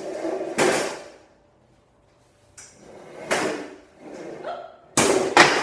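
A chair dragged and scraped across the floor in several short, loud strokes, two of them close together near the end.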